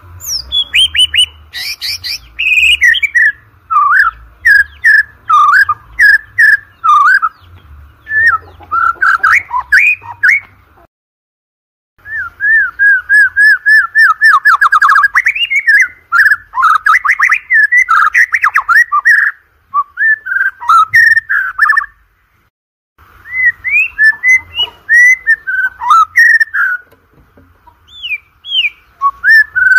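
White-rumped shama (murai batu) singing a fast, varied run of loud whistles, trills and chattering notes, breaking off twice for about a second.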